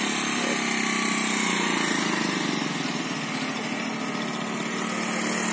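Small motorcycles' engines running steadily at low revs while being ridden slowly.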